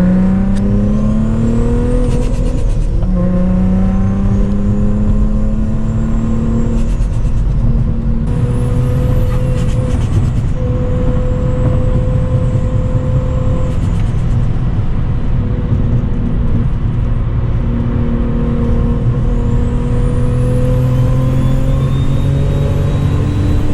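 Turbocharged Infiniti G35's V6 engine running under load while driving; its pitch climbs and then drops several times as it shifts through the gears.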